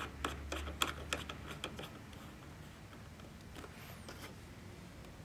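Light clicks and taps from handling and tightening the massage chair's remote controller on its ball mount, a quick run of them in the first two seconds, then only a few faint ticks.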